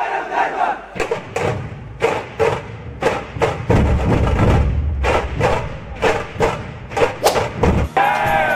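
Dhol drums beating a fast, even rhythm, about two to three strokes a second with deep booms, over a shouting crowd. Near the end, recorded music with singing starts.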